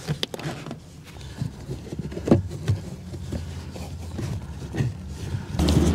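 Scattered light clicks and knocks from hands working around a car's front seat rails, trim and floor carpet, over a low steady hum that grows louder near the end.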